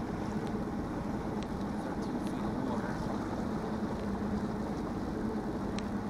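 Boat motor running steadily underway, with a low hum under a constant rush of water and wind.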